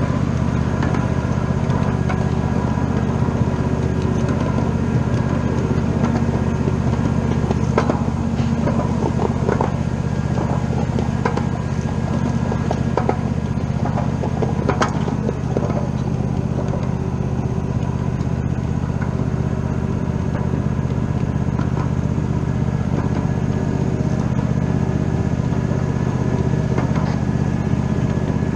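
A steady, even engine-like drone of a running vehicle or machine, with a scatter of clicks and knocks in the middle.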